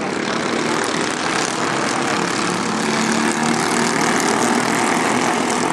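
Racing kart engine running at speed, a steady buzzing drone that gets a little louder about halfway through.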